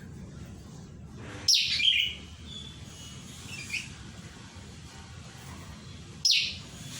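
Wild flowerpecker giving short, sharp, high-pitched calls that drop in pitch: two loud ones, about a second and a half in and near the end, with a fainter one between.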